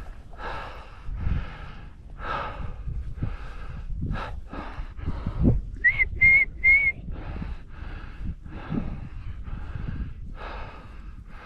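Heavy, rhythmic breathing of a person walking hard, one breath sound about every two-thirds of a second. About six seconds in, three short whistle notes sound in quick succession, each slightly rising.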